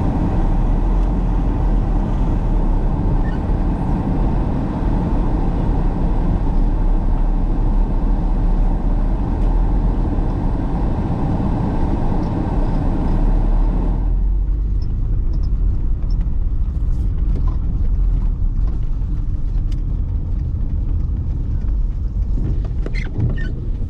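Car on the move: a steady rumble of road and engine noise. The higher hiss drops away suddenly about halfway through, leaving mostly the low rumble with a few faint clicks.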